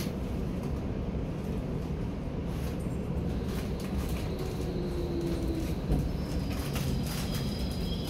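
Hamburg DT5 electric U-Bahn train rolling slowly into the terminus platform, heard from inside the car: a steady running rumble with a faint whine in the middle, and thin high squealing tones coming in near the end as it slows to a stop.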